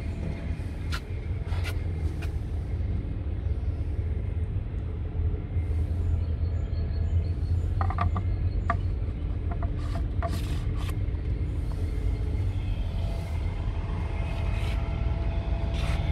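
Scania R truck's diesel engine idling steadily. Several sharp plastic clicks and taps come about halfway through, as the hard plastic caps under the front hatch are handled.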